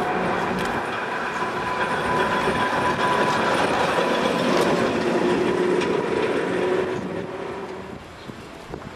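Vintage two-axle tram running past on the rails, its wheels clicking over the track with a steady whine from the running gear. The sound fades about seven seconds in.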